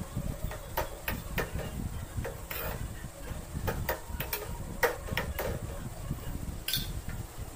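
Metal spoon clinking and scraping against a metal kadai while stirring a thick vegetable kootu: irregular light knocks, one or two a second, over a steady low rumble.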